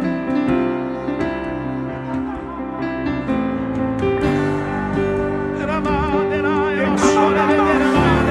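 Slow worship music on keyboard: held piano chords, with a voice beginning to sing with vibrato a little past halfway.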